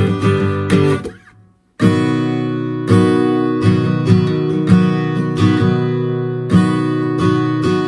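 Steel-string acoustic guitar strummed in a busy rhythm, cut off a little over a second in. After a brief silence the guitar, now capoed, strums ringing chords with an accented stroke about once a second.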